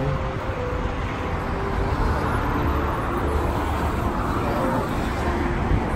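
Steady city road traffic noise, a low rumble of passing cars.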